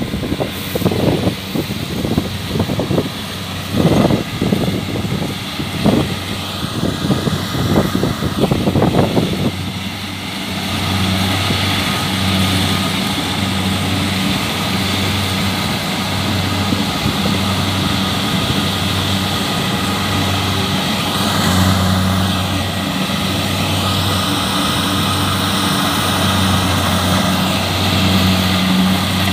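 Kubota DC-70 combine harvester's diesel engine running. For about the first ten seconds, irregular thumps and rattles sound over it. After that the engine hum is steady, with a throb that swells and fades about every second and a half.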